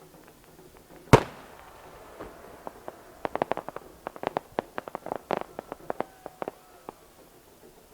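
Fireworks: one aerial shell bursts with a single loud bang about a second in that echoes on for a while, then a rapid crackle of many small sharp pops follows for about four seconds.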